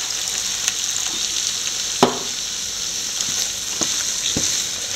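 Potato masala sizzling with a steady hiss in a frying pan as a little water is poured in, then stirred and mashed with a wooden spatula that knocks on the pan three times, about two seconds in and twice near the end.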